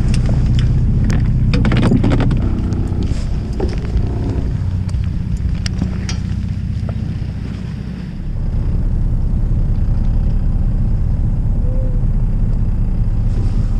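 Fishing boat's engine running steadily with a low hum, its note shifting about eight seconds in. Sharp clicks and knocks of tackle and gear being handled in the first few seconds.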